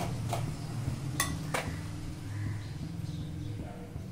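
Three short metal clinks in the first two seconds as a wire strainer lifts a fried puri from a kadhai of oil and sets it on a plate, over a steady low hum.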